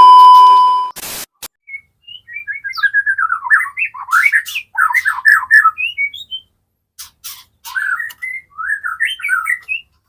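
A loud steady beep lasts about a second, followed by a click. Then a white-rumped shama (murai batu) sings in rapid, varied chirping and whistled phrases with short pauses between them.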